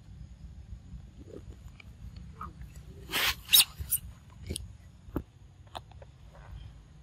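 Macaques close by: scattered short clicks and brief squeaks, with a loud rustling burst and a few sharp clicks about three seconds in.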